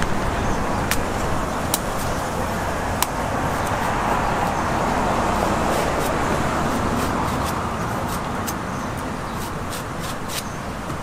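Steady outdoor street-market and road-traffic noise, broken by scattered sharp clicks and taps.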